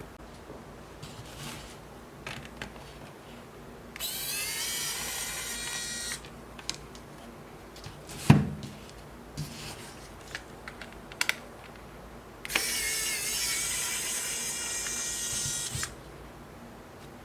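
Kaiweets ES20 cordless electric screwdriver running in two bursts, about two seconds and then about three seconds, a steady whine of its small geared motor turning small screws. Between the bursts there is a sharp knock and a few light clicks.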